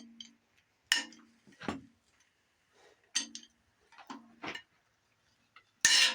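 Socket and wrench working a cylinder head bolt on a Dodge 318 V8: a handful of sharp metallic clinks, several followed by a short low squeak. Near the end a loud screech starts as the bolt, a squealer, turns in its threads.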